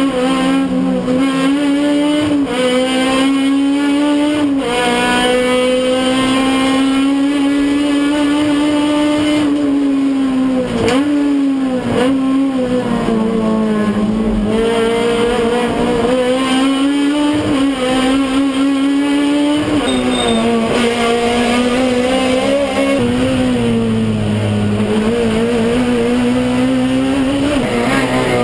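Touring race car engine heard from inside the cockpit at racing speed, its note climbing steadily and then dropping sharply again and again as the car accelerates, shifts and slows for corners.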